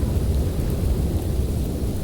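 Snowstorm wind: a steady low rumbling roar with a fainter hiss above it.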